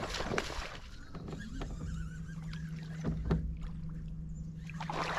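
Bass boat's electric trolling motor humming steadily at one low pitch, setting in about a second in, with a few sharp knocks on the boat.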